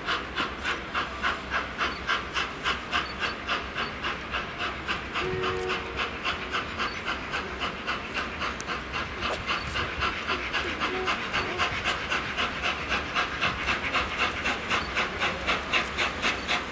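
Peppercorn A1 Pacific steam locomotive 60163 Tornado chuffing at low speed, its three-cylinder exhaust beating in a steady, even rhythm of about four to five beats a second.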